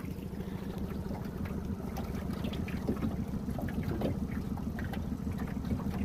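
Small outboard motor running steadily at low speed, a constant low hum, with light water splashing against the boat.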